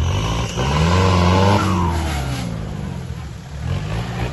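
4x4 SUV engine revving hard as it climbs a steep muddy slope. The pitch rises to a peak about a second and a half in, falls away as the vehicle pulls up and over, then rises again briefly near the end.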